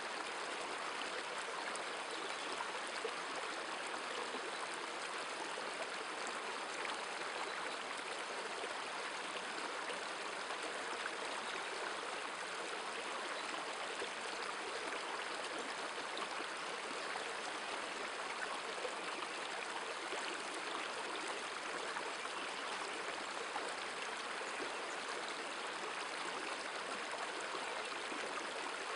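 River water running over a stony bed: a steady, even rushing with no change in level.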